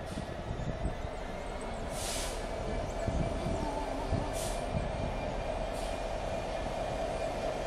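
Class 66 diesel locomotive with its two-stroke V12 running as it draws slowly into the station, engine drone and wheel rumble growing steadily louder. Three short hisses come about 2, 4.5 and 6 seconds in.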